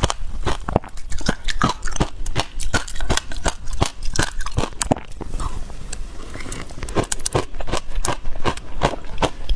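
Dense, rapid crisp cracking and crunching of frozen passion fruit ice as a spoon breaks into it and it is bitten, easing off briefly midway and picking up again near the end with the bite.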